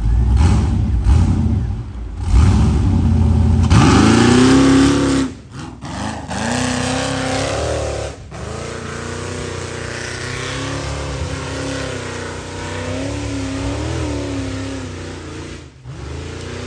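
Off-road race buggy engine revving hard. It starts as a low rumble, climbs sharply about four seconds in, then holds at high revs with the pitch rising and falling as the throttle is worked. It breaks off briefly a few times.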